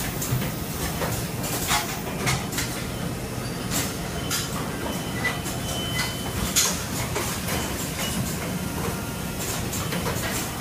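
Automatic screen printing machinery running: a steady mechanical din with irregular sharp clacks from the moving heads and actuators.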